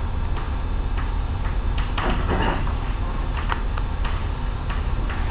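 Chalk on a blackboard: irregular sharp taps and short strokes as words are written, with one longer scratchy stroke about two seconds in, over a steady low hum.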